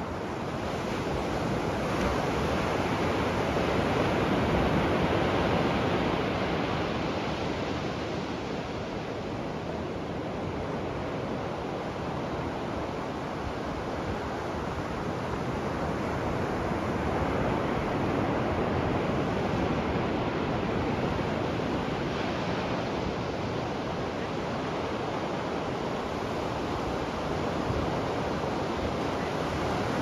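Ocean surf: waves breaking and washing up the shore as a continuous rushing that swells and eases slowly, with a louder swell a few seconds in and another past the middle.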